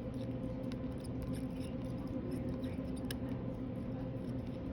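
Faint, scattered metal clicks of a hand amalgam condenser packing amalgam into a tooth preparation, over a steady low hum.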